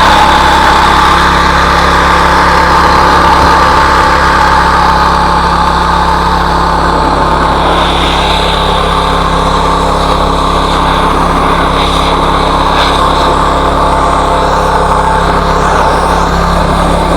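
BE gasoline pressure washer's small engine running steadily while the washer is in use, with no leak at the pump or hose.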